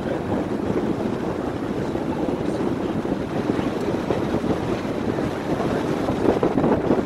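Steady rumble of a river tour boat under way, with wind buffeting the microphone.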